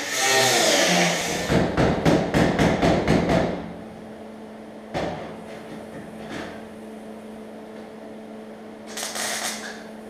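Cut-off wheel cutting sheet steel along a car's quarter-panel wheel arch, its whine wavering in pitch, stopping about a second in. A rapid run of sharp metallic knocks follows for about two seconds, then a steady hum with a single knock and a short burst of hiss near the end.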